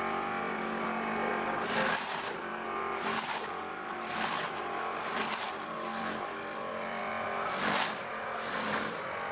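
Homemade corn sheller, an old Sanyo water-pump motor spinning rubber tire-strip paddles, running steadily. Irregular bursts of rasping and rattling come about once a second as corn cobs are pressed against the paddles and kernels are stripped off.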